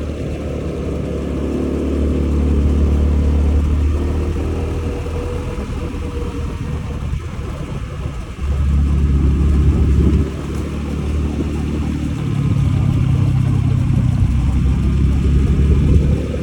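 Honda Zoomer 110 scooter's single-cylinder engine running on the move, mixed with heavy wind rumble on the microphone. It rises and falls with the throttle: a sharp surge about eight and a half seconds in, a drop about ten seconds in, and a build again from about twelve seconds.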